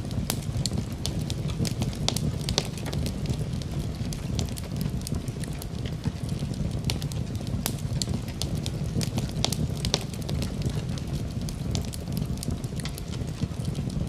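Wood fire crackling in a fireplace: a steady low rumble of the flames with frequent sharp, irregular pops and snaps.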